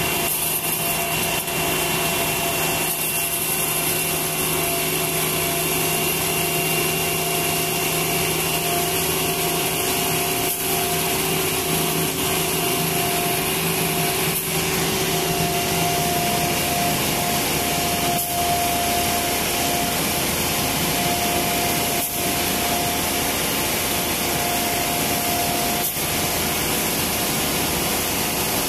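Concrete mixer truck running steadily with its drum turning while it discharges wet concrete down the chute; the engine's note changes about halfway through. A few faint knocks.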